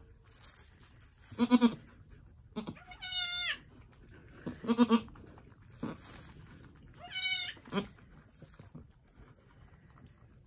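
Angora goats bleating, four calls in all: a goat doe in labour gives low, wavering bleats, alternating with higher-pitched, cleaner bleats from her newborn kid.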